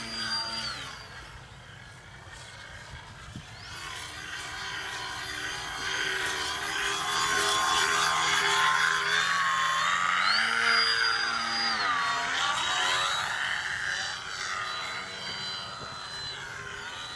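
Brushless electric motor and propeller of a foam RC aerobatic plane whining, its pitch stepping up and down with the throttle. It grows loud as the plane passes close, about six to eleven seconds in, then fades.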